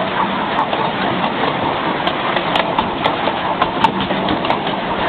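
A 7¼-inch gauge miniature railway train in motion: a steady rumble of the moving carriage, with scattered sharp clicks and clacks from the wheels on the track.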